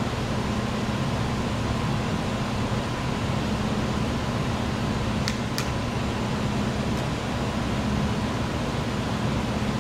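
Steady hum and whoosh of a fan or air-handling unit, with two faint sharp ticks a little over five seconds in.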